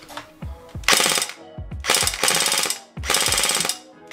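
G&G GKM airsoft electric gun (AKM replica, version 3 gearbox, 11.1 V LiPo) dry-firing on full auto in three short bursts of about half a second each, the gearbox cycling at a fast, even rate with the motor whine under each burst. The muzzle is blocked by a finger so that the trapped air works the pneumatic blowback.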